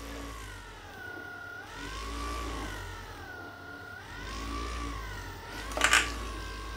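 Vibration motor of a RubBall massage ball humming while it is squeezed in the hands. Its pitch sags twice and recovers as the pressure slows the motor, which the reviewer thinks may be partly down to a battery that is not fully charged. A sharp knock comes near the end.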